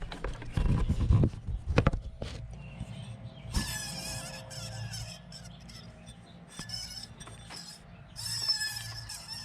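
Worn bearing in a 2003 Mercury Mountaineer's top idler pulley, spun by hand with the belt off, giving a high-pitched whine that wavers. It comes in two spells, one about three and a half seconds in and another near the end, after a few knocks of handling. The whine marks this pulley as the cause of the squeal heard with the engine running.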